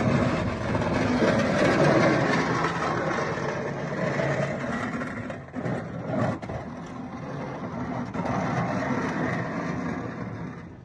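Engine of a snow-plowing machine running under load, its level rising and falling as it works.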